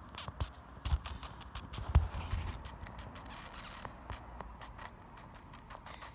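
Fingers rubbing and pressing the wet rubber of a bicycle inner tube over a slow leak, with small crackling and scratching noises, a faint high hiss of escaping air in the middle, and a low thump about two seconds in.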